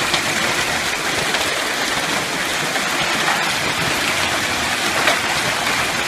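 Quarter- to half-dollar-size hail pelting down in a heavy, steady clatter, with a few louder single stones cracking out, one just after the start and a harder one about five seconds in.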